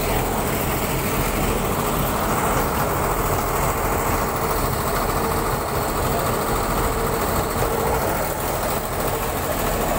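Combine harvester's diesel engine running steadily under load as the machine is hauled out of the mud by a tractor on a tow cable.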